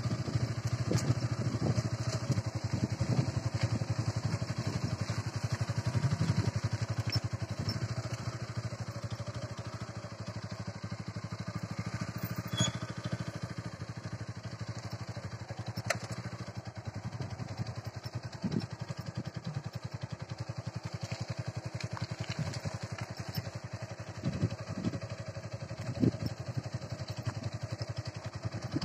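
Motorcycle engine running steadily at low speed, with a few sharp knocks and rattles along the way.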